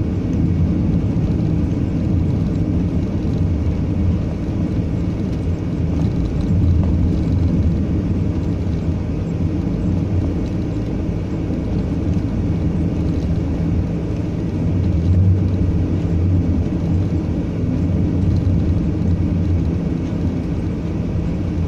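Delivery vehicle being driven: a steady low engine hum and road rumble, even throughout.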